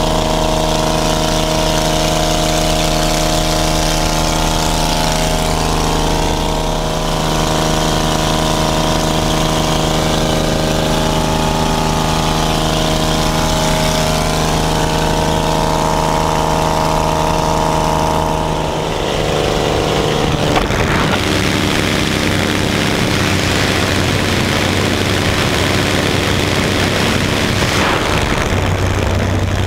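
Cabin noise of a UTVA-66 light plane: its six-cylinder piston engine running steadily in the climb. About two-thirds of the way through, the sound turns into a loud rush of wind with the engine still under it, as the cabin door stands open for the jump.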